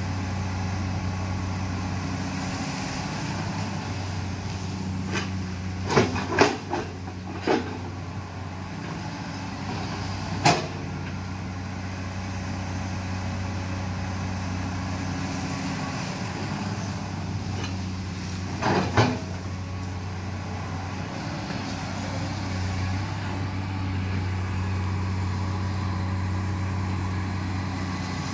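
Komatsu PC210LC hydraulic excavator's diesel engine running steadily while it digs, with a few sharp knocks from the working machine: a cluster about six seconds in, one near ten seconds, and a pair near nineteen seconds.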